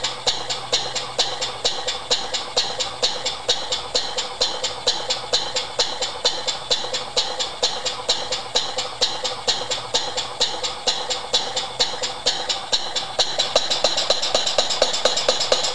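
Small horizontal model steam engine running fast, its exhaust giving a rapid, even train of sharp chuffs. The beats grow a little louder near the end.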